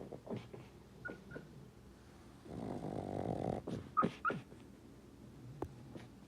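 Sleeping pug dreaming: short muffled yips and whimpers in its sleep, a snore lasting about a second midway, then two sharper yips in quick succession.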